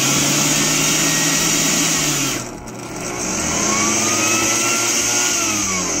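Oster Xpert blender motor spinning in one direction, stopping about two and a half seconds in, then spinning up again the other way and winding down near the end. This is the self-diagnostic rotation test, turning the motor left and right to confirm it is in good condition.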